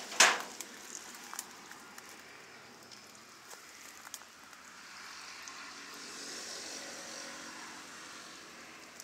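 A single sharp metallic clank as the steel cleaver forged from rebar is set down on the wet table, with a brief ring. Then a low, steady outdoor background with a few faint ticks and a faint hum that swells and fades in the second half.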